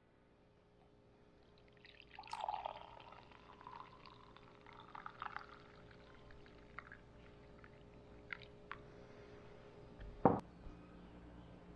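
Coffee poured from a stainless steel travel coffee press into a ceramic mug, a faint splashing trickle that comes and goes over a few seconds. It is followed by a few light clicks and a single knock about ten seconds in as the press is set down on the table.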